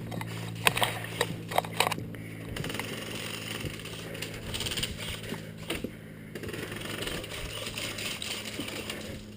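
A quick, irregular run of about five sharp clicks or knocks in the first two seconds, then rustling and scattered lighter knocks over a low steady hum.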